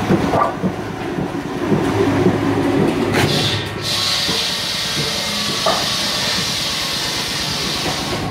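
Wood veneer peeling machine running with a steady mechanical rumble and rattle and a few sharp clicks. From about four seconds in, a steady hiss joins it.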